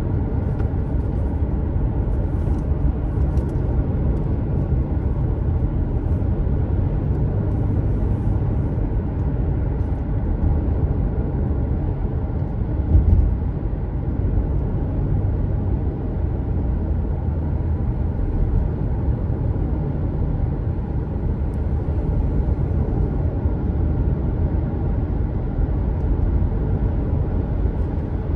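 Steady low road and engine rumble of a moving car, heard from inside it, with one brief louder bump about thirteen seconds in.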